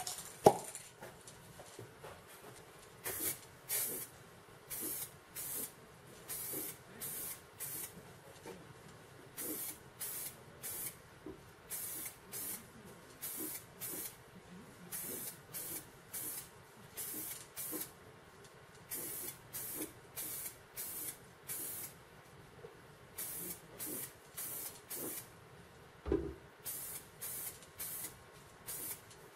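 Aerosol spray paint can spraying in short hissing bursts, roughly one or two a second, with brief gaps between passes. A sharp knock about half a second in and a thud about 26 seconds in.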